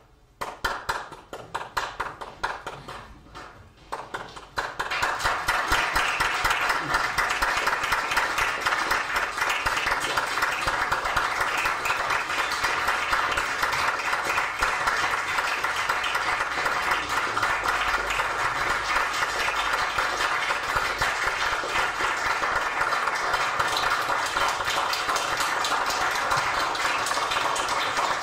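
Audience applause: a few scattered claps at first, swelling about five seconds in to full, steady clapping.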